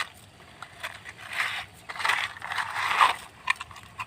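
Plastic toy vehicles rattling and scraping against each other as a pile of toys is rummaged through, in several short bursts with a few sharp clicks.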